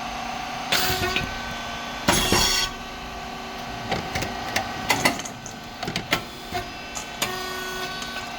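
SYP5310T puffed rice cake machine running with a steady hum. About two seconds in there is a short loud hissing pop, as a cycle's heated moulds open. Scattered clicks and knocks follow.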